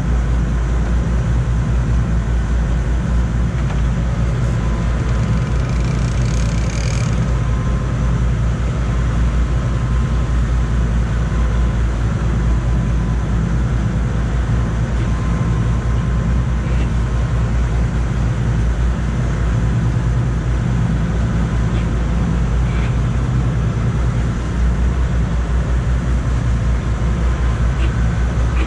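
Fishing boat's engine running steadily at trolling speed, a constant low drone with a deep hum.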